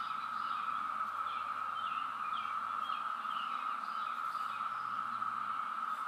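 Chorus of 17-year periodical cicadas: many males calling together to attract mates, a steady, unbroken high hum that is really, really loud.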